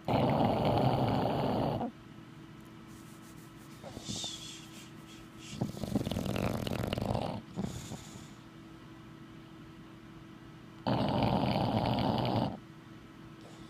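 English bulldog snoring in deep sleep: three long snores, each about two seconds, spaced roughly five seconds apart, with a softer snuffle between the first two.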